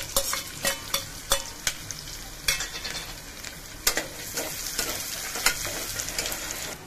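Finely chopped onion and whole spices sizzling in hot oil in a pressure cooker, stirred with a spoon that clicks and scrapes against the pot at irregular moments, about one to three times a second.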